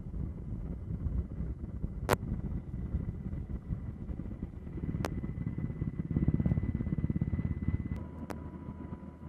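Helicopter engine and rotor noise heard from on board: a steady low rumble with a thin steady whine over it, louder for a couple of seconds near the end. Two sharp clicks about two and five seconds in.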